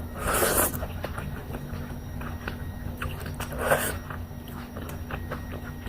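A person eating close to the microphone: chewing with many small mouth clicks, and two short, louder noisy bursts, one near the start and one a little past the middle. A steady low hum runs underneath.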